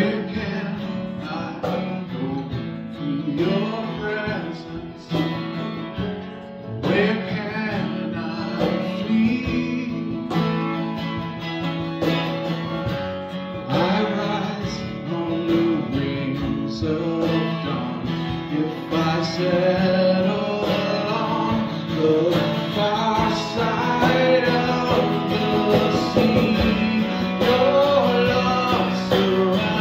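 A man singing a worship song to his own strummed acoustic guitar, a little louder in the second half.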